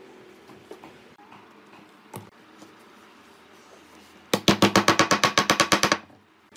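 A fast run of about a dozen sharp rubbing strokes, some eight a second, lasting under two seconds, starting about four seconds in: a wooden block worked back and forth against the end of a curved wooden rocker. Before it, quiet with one light knock of wood about two seconds in.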